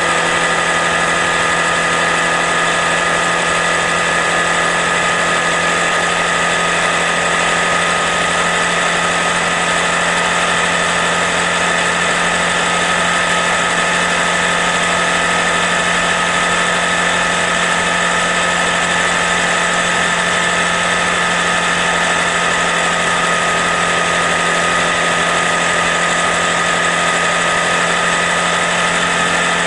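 Honda Grom's single-cylinder engine running at a steady cruising speed, with a constant high whine over an even rushing noise.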